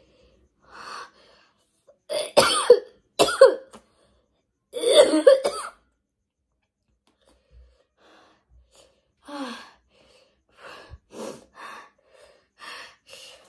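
Person coughing in repeated harsh bouts, loudest from about two to six seconds in, then a run of weaker coughs near the end: coughing brought on by the burning chili of the Jolochip.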